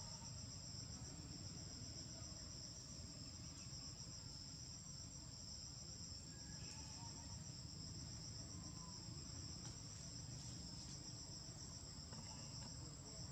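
Insects trilling steadily in a high-pitched, rapidly pulsing chorus, with a faint low rumble beneath.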